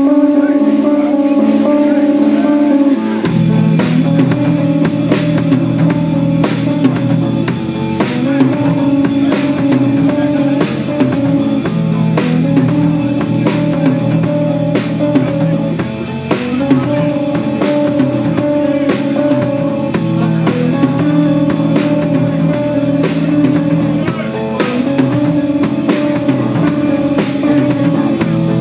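A rock band plays a song with electric guitar, bass and drum kit. The guitar plays alone at first, and the drums and bass come in about three seconds in.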